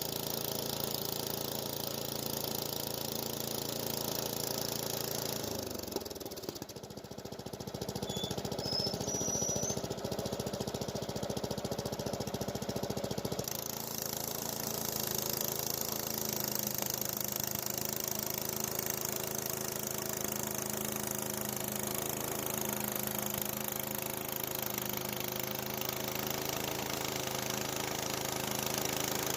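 Small gasoline engine running steadily, the sound shifting abruptly about six seconds in and again near thirteen seconds.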